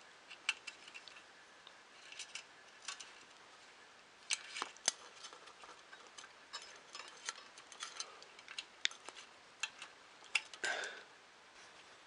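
Faint, irregular small clicks and taps from hands handling a small limit switch and its wires, threading the two wires through a hole in a frame part.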